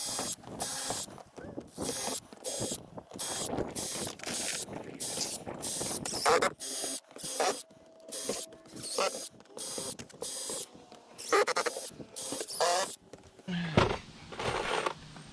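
Cordless drill run in about twenty short bursts, roughly two a second, drilling out the pre-drilled holes in metal Z-bar flashing on a standing seam metal roof; the bursts stop a couple of seconds before the end.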